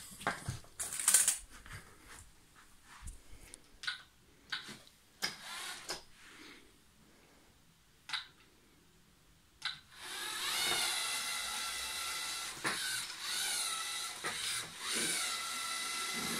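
Scattered clicks and knocks as a LEGO Mindstorms EV3 robot is handled and started. Then, from about ten seconds in, the steady whine of its EV3 motors and gears as it drives across the field, rising and falling in pitch, with an occasional click.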